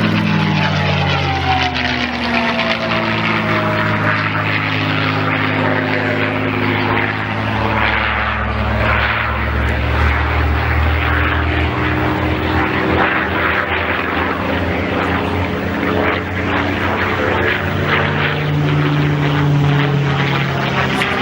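Piston-engined propeller aircraft flying past: its engine note drops in pitch in the first second or two as it goes by, then a steady engine drone whose tone keeps shifting as it manoeuvres.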